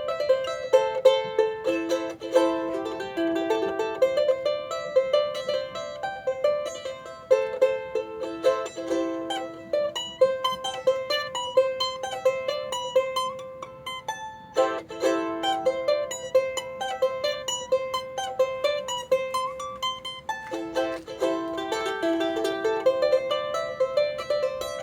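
Freshly built mahogany charango played solo: quick plucked melodic runs mixed with chords, with a brief break just past halfway.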